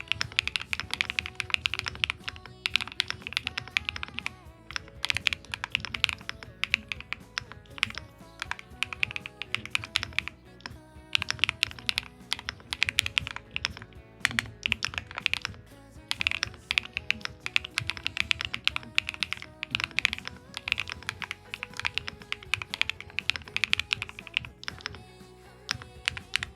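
Epomaker Split 70 mechanical split keyboard being typed on in fast, continuous runs of key clicks with brief pauses, over background music.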